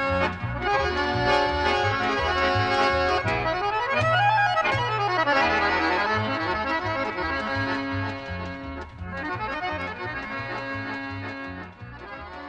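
Instrumental background music with a rhythmic low pulse and a quick run up and down in pitch about four seconds in, growing quieter toward the end as it fades out.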